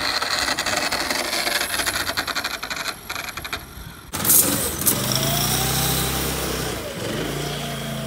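A small motor running with a dense, fast rattle. About four seconds in, an abrupt cut brings a small engine running, its pitch dipping and rising as it moves.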